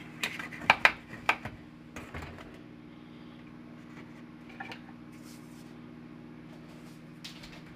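Kitchen utensils clattering as they are handled and set down on a countertop: a quick run of sharp clicks in the first second and a half, then a few single clicks, over the steady hum of a running microwave oven.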